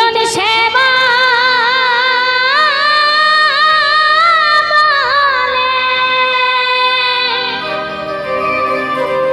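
Woman singing a Baul song into a microphone: one long phrase with wavering vibrato and pitch slides, ending about five seconds in. A keyboard holds steady notes beneath her and on after she stops.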